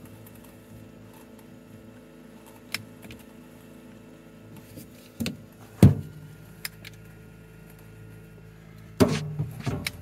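Compressor fridge running with a steady low hum, broken by knocks and clatter of the fridge's fittings being handled. The loudest is a sharp knock about six seconds in, and a short burst of clatter starts about nine seconds in.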